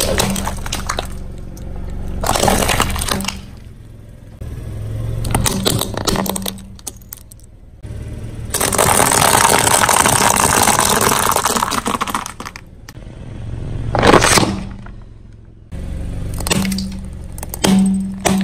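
Objects cracking and breaking as they are crushed under a car tyre, in several separate bouts. The longest is a few seconds of dense, steady crunching about halfway through, followed by a short sharp crack.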